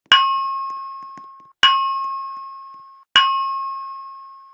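Fire alarm voice evacuation system chime: three bell-like tones at the same pitch, about one and a half seconds apart, each struck and fading away. It is the alert tone that comes before the recorded evacuation announcement.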